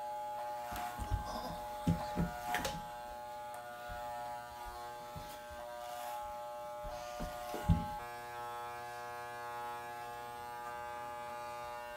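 Corded electric hair clippers buzzing steadily as they are run through a boy's hair, with a few brief knocks from handling them.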